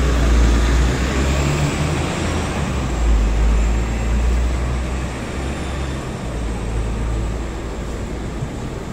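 City traffic noise with a vehicle engine's low rumble, slowly fading.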